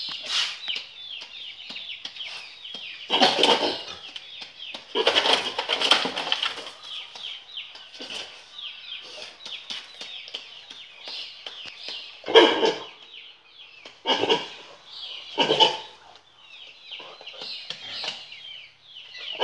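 Farm animal calls: a steady run of high chirping throughout, broken by louder, harsher cries, two longer ones a few seconds in and three short ones later.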